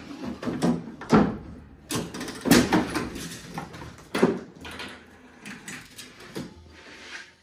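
A Rube Goldberg machine's wooden and plastic parts knocking and clattering as it runs: a run of sharp knocks, loudest about a second in, at two and a half and at four seconds, then fewer and softer.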